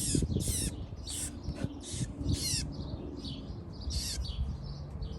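A small bird chirping over and over: short, high chirps that slide downward in pitch, about two a second, over a low rumble.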